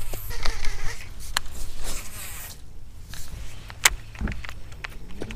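Baitcasting reel whirring as a topwater frog is cast out, then the reel ticking and clicking while the frog is worked back across the water, with a few sharp clicks.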